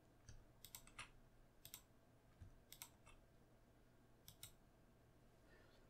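Faint clicks of a computer mouse, a dozen or so irregular short clicks, several in quick pairs, with near silence between them.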